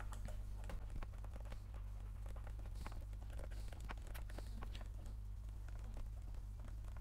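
Stylus tapping and scratching on a pen tablet as numbers are handwritten: short, irregular clicks at an uneven pace over a steady low hum.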